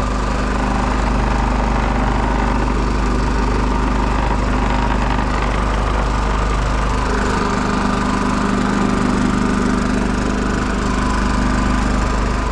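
WEN 56477i 4800-watt inverter generator running steadily with no load and eco mode off, an even purr that the owner finds quiet.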